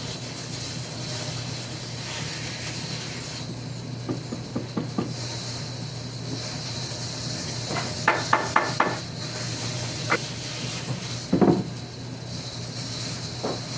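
Sharp knocks and taps on wood, with a quick run of about five ringing strikes near the middle and a heavier, duller thump a little later. Under them runs a steady hum and hiss.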